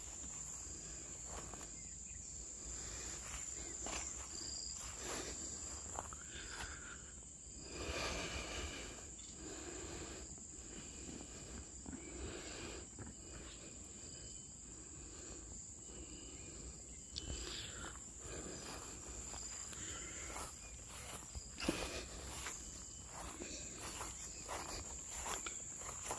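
Steady high-pitched insect chorus, with scattered rustles and soft knocks throughout.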